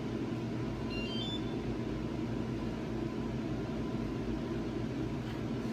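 Motorcycle anti-theft alarm giving its arming signal: a quick run of short high electronic beeps stepping up in pitch about a second in. Underneath is a steady low hum and background noise.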